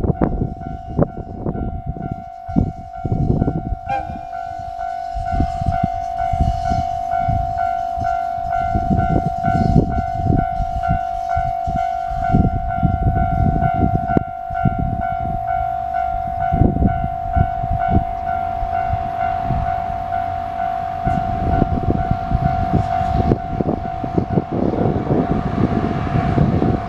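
Level crossing warning alarm sounding continuously, a steady ringing tone that carries on throughout. Heavy, uneven low-pitched noise runs underneath it.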